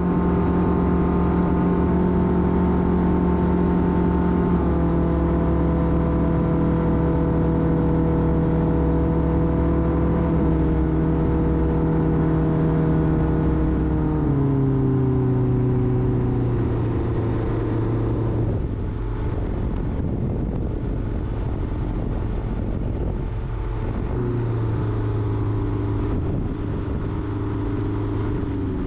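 Rotax aircraft engine running steadily, its pitch stepping down three times over the first fifteen seconds as power is reduced, then rising a little about twenty-four seconds in.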